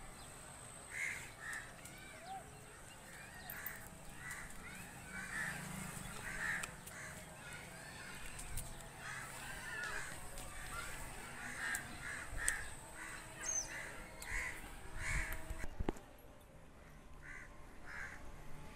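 Birds calling in the background, a steady scatter of short, irregular calls.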